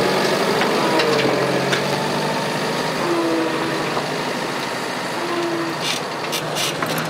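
A KamAZ heavy truck's diesel engine running steadily as the truck pulls slowly away. Two short, higher tones come through near the middle.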